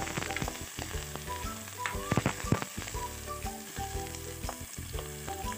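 Sliced onions sizzling in hot mustard oil in a pan, at the early stage of frying before they turn translucent. A spatula stirs them and scrapes and taps against the pan several times. Soft background music plays underneath.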